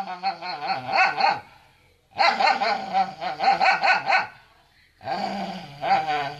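Dog barking in fast runs of about five or six barks a second, in three bouts broken by short pauses.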